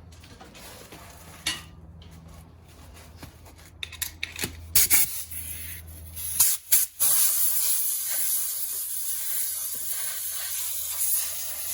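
A few knocks and handling sounds, then two short spray bursts about six and a half seconds in and a steady spray hiss for about five seconds, clearing dust and crud out of the wheel hub and knuckle area.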